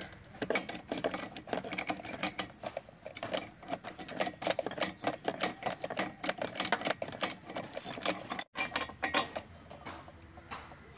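Metal tubular spark-plug spanner clicking and rattling against the plug and the engine cowl of an LML Vespa Select 2 as the cleaned spark plug is screwed back in: many quick, uneven metallic clicks. The sound cuts out for an instant a little after eight seconds.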